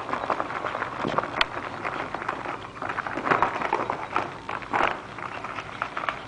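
Empty foil-lined dog food bag crinkling and rustling in irregular bursts as a puppy burrows into it and paws and tugs at it.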